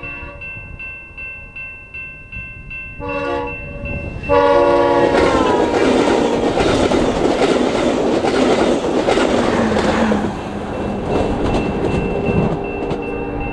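VIA Rail Siemens Venture passenger train sounding its horn, a short blast about three seconds in, then a long one that drops in pitch as the train passes. The train then rushes and clatters by at speed, easing off about ten seconds in. A grade-crossing bell dings steadily throughout.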